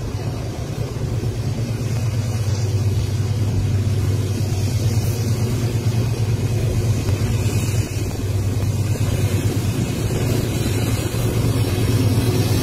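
Freight train passing: the steady low drone of a diesel locomotive engine over the rumble of the wagons on the rails, growing a little louder near the end as the rear locomotive comes close.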